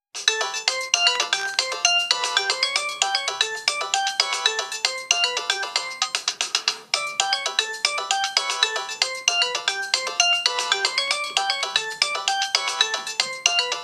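An old Samsung MIDI ringtone playing through a Nokia 112's small loudspeaker: a quick melody of many rapid notes with no bass, broken briefly about seven seconds in.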